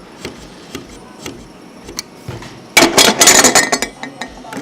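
Box cutter and needle-nose pliers working at a speaker's circuit board: light scattered clicks, then about three seconds in a loud burst of scraping and cracking lasting about a second.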